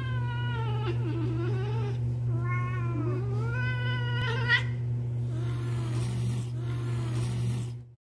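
Cat yowling at another cat in a jealous standoff: long, wavering growl-yowls that slide up and down in pitch, three strong ones followed by fainter ones, over a steady low hum. Everything cuts off abruptly near the end.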